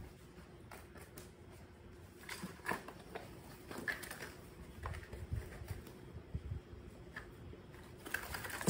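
Scattered light taps, knocks and rustling of a baby monkey scrambling on a tiled floor and grabbing and handling a plastic container, with a few dull thumps past the middle and a sharp knock at the very end.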